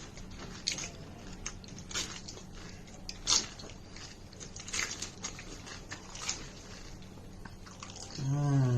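Close-up chewing of pani puri, the crisp hollow puri shells crunching with scattered small crackles. Near the end comes a short voiced 'mmm' that falls in pitch.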